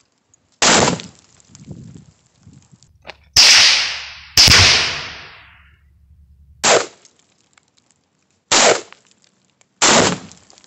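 A run of about six sharp bangs from rifle shots and binary exploding-target detonations (Tannerite and Sonic Boom targets). The two loudest come in the middle, a second apart, each trailing off for over a second.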